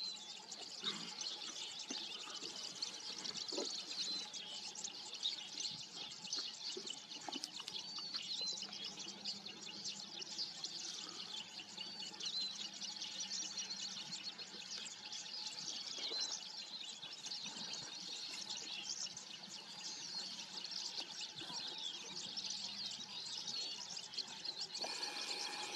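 Many small birds chirping and twittering, with faint, scattered crunching and tearing sounds from lions feeding on a warthog carcass.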